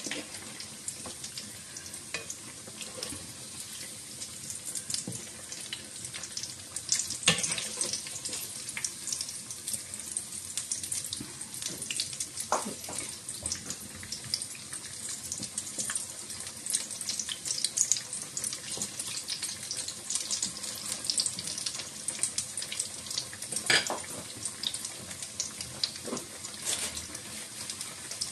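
Potato cutlets shallow-frying in hot oil in a frying pan: a steady sizzling hiss full of small crackles, with a few sharper crackles about 7, 12 and 24 seconds in.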